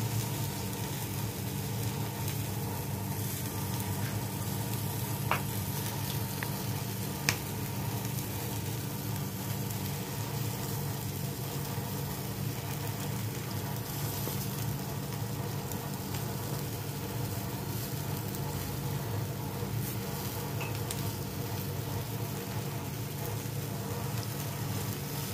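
Marinated chicken sizzling steadily as it fries in an oiled pan, freshly basted with mustard oil. There are two short sharp clicks, about five and seven seconds in.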